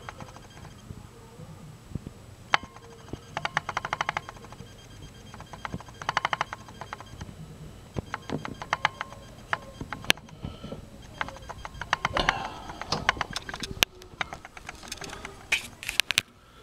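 Several short runs of rapid clicking, about fifteen to twenty clicks a second, with scattered single clicks in between over a faint low hum.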